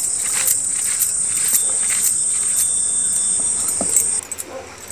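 A steady high-pitched insect drone that cuts off suddenly about four seconds in. Under it are a few soft knocks as the grinding stone crushes chopped onion on the stone slab.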